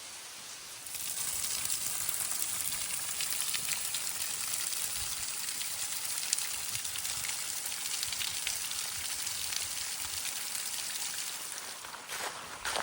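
Steady rain falling: a dense hiss full of fine drop ticks. It starts suddenly about a second in and eases near the end.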